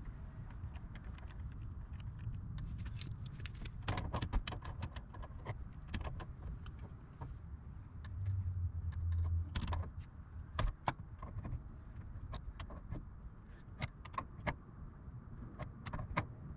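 Irregular small clicks and light metallic taps as hands handle brass water-valve fittings and threads under the heater, over a low background rumble that swells briefly about eight seconds in.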